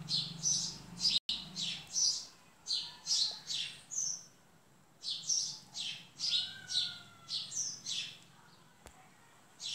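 Small birds chirping: a run of quick, high chirps several times a second, pausing briefly about four seconds in and dying away near the end.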